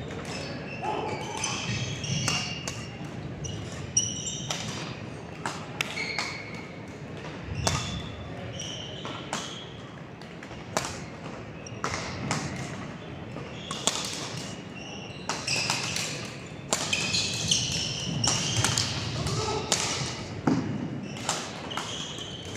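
Badminton doubles rally: sharp racket strikes on the shuttlecock about every second or so, with short high squeaks of court shoes on the gym floor and a low murmur of voices in the hall.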